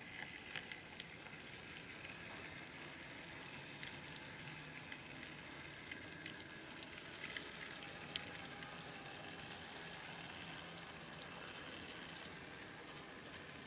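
Model train running past on its track: a faint steady hiss and rumble from the small locomotive's motor and wheels, dotted with light clicks, growing louder about halfway through as the train comes closest, then easing off.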